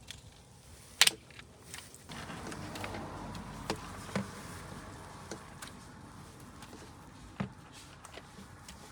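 Hands working plastic parts and cables off an old car door latch mechanism: a sharp plastic click about a second in, then a few lighter clicks and knocks over a faint steady hiss.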